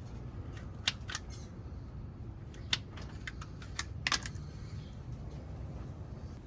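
Scattered sharp clicks and light taps, about half a dozen irregular ones, from handling tools and wiring, over a low steady rumble.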